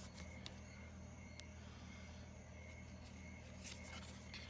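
Near-silent room tone with a steady low hum, and a few faint clicks and rustles of trading cards being handled and laid down on carpet.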